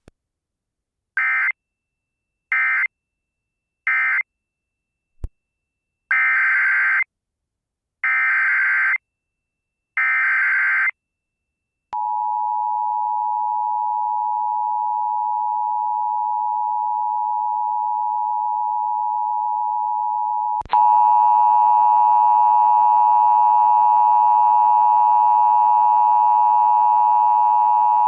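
Emergency Alert System tones from a Sage ENDEC. First come three short data bursts, the end-of-message code closing the previous warning. Then come three longer data bursts, the header of the next alert, and the steady two-tone attention signal for about eight seconds. About two-thirds of the way in, the attention signal gives way to a louder, harsher buzzing tone.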